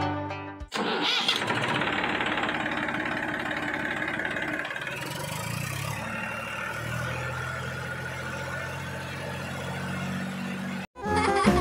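Small motor running steadily as a homemade miniature tractor drags a plough through loose soil. Its tone drops about halfway through, and it cuts off abruptly near the end.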